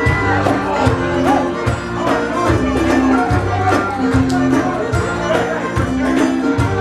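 Live Celtic band playing an instrumental tune on fiddle, accordion, acoustic guitars and drum kit, with a steady drum beat.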